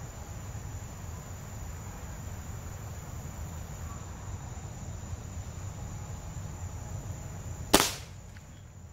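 A break-barrel Umarex Surge air rifle firing a single sharp shot near the end, over steady chirping of crickets.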